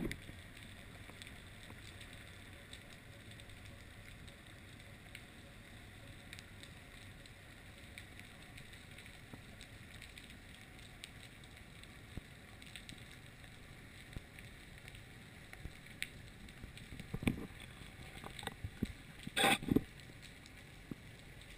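Underwater sound picked up through a diving camera's housing: a faint steady hiss with scattered small clicks, then a few knocks and a louder short rush of noise about nineteen seconds in.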